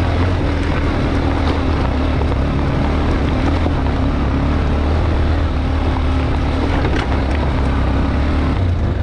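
Motorcycle engine running at a steady pitch through the whole stretch.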